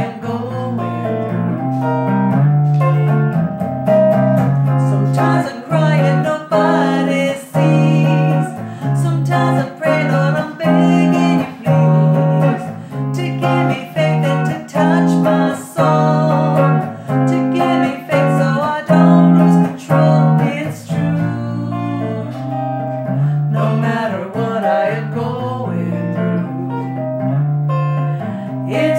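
A woman singing with a guitar accompaniment, the chords struck in a steady rhythm.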